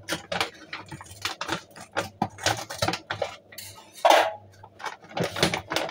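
Plastic snack packet crinkling and rustling as it is handled and opened, in irregular sharp crackles.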